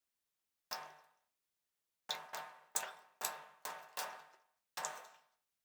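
A series of short, sharp clinks, each with a brief ring: one alone, then a run of about eight at an uneven pace, roughly two a second.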